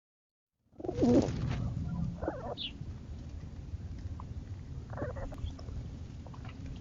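Pigeons cooing: a few short, low calls spread a second or more apart, with one brief higher-pitched call between them, over a steady low rumble.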